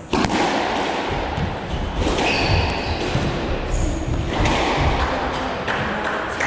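Squash rally: a rubber squash ball being struck by racquets and thudding off the court walls in a series of sharp knocks, over a steady rush of noise.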